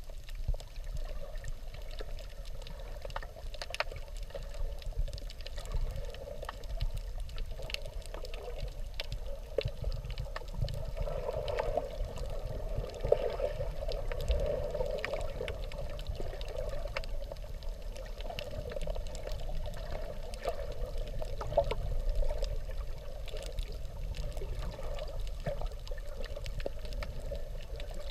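Underwater sound of a reef heard through a submerged camera: a steady, muffled watery rush with scattered faint clicks.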